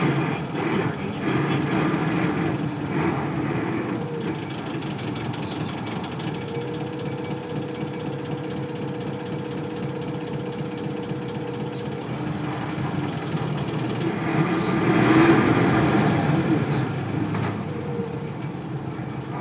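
Isuzu Cubic KC-LV380L bus's 8PE1 V8 diesel engine running, heard from inside the bus. A steady whine runs through the middle, and the sound swells louder about three-quarters of the way through.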